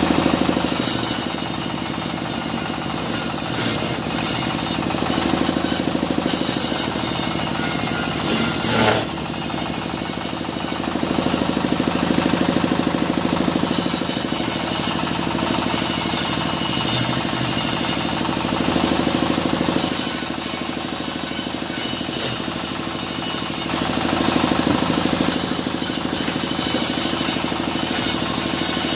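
A small sawmill running steadily while sawing mahogany, with a bright cutting noise that comes and goes every few seconds over the machine's steady drone.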